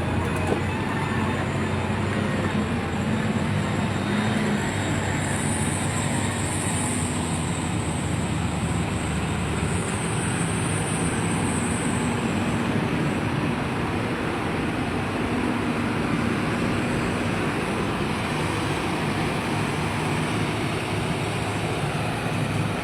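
Truck engine running steadily, a continuous low mechanical drone.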